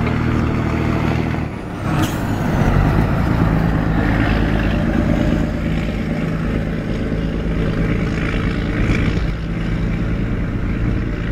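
Scania 113 truck's straight-six diesel engine running loud and steady, a deep throaty note. About two seconds in, a sharp click and a brief hiss.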